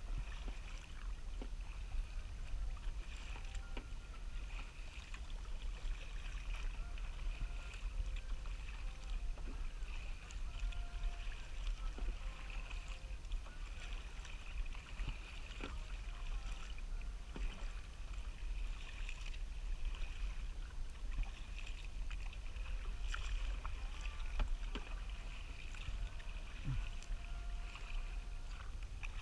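Kayak paddling on open water: paddle blades splashing and dripping every couple of seconds, with water washing along the hull over a steady low rumble.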